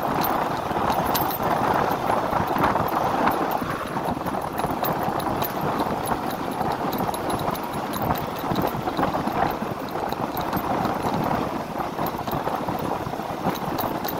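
Steady rush of wind and road noise while riding a first-generation Yamaha NMAX scooter, with a fine irregular crackle of wind buffeting the microphone.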